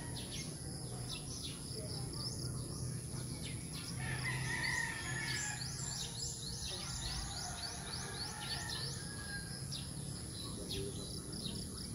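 Birds chirping: short falling chirps, bunching into a quick run of chirps about five seconds in. Under them run a steady low rumble and a thin, steady high whine.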